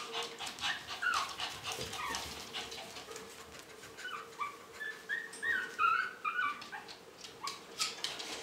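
Shih Tzu puppies, about four and a half weeks old, giving short high whimpers and squeaks, most of them about halfway through, among scattered light clicks and taps.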